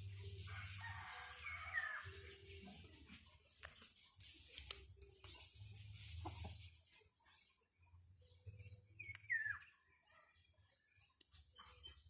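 A pet bird giving a few short chirps, two of them sliding down in pitch, about two seconds in and again about nine seconds in, over small taps and a low hum that comes and goes.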